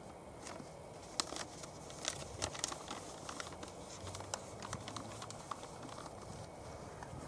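Something small being fiddled with in the hands: irregular light clicks and crinkles, several a second, over faint outdoor hiss.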